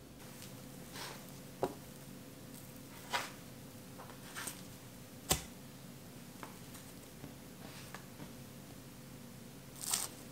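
Plastic bench scraper cutting and handling bagel dough on a stone countertop: a scatter of short scrapes and knocks, the sharpest about five seconds in, over a faint steady hum.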